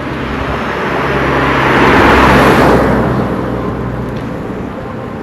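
A motor vehicle driving past, its engine and tyre noise swelling to a peak about two seconds in and then fading, over a steady low engine hum.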